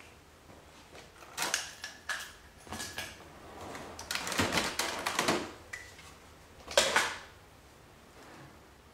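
Hard plastic clicks and taps as the Honda Gold Wing 1500's dash centre console panels are handled: scattered sharp clicks, a short run of clatter about halfway through, and the loudest click about seven seconds in.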